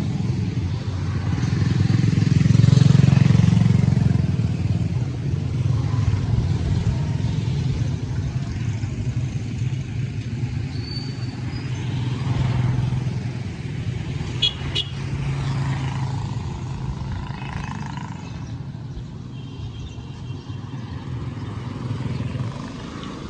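Motorcycle engine running on the move, with road and wind noise; it swells to its loudest about three seconds in, then eases off.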